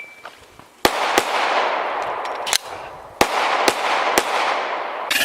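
Glock 17 9mm pistol firing about six shots at an uneven pace, each followed by a long echo off the surroundings. Electronic music starts near the end.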